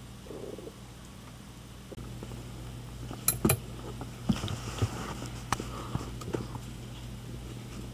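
Sharp clicks and light knocks as a cat plays, pawing at a cable on a chair: a loud pair about three seconds in, then a scatter of lighter ones.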